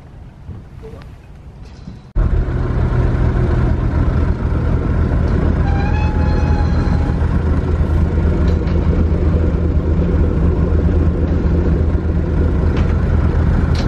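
Passenger ferry boat's engine running loud and steady with a deep hum, cutting in abruptly about two seconds in after a quieter stretch of wind and water noise.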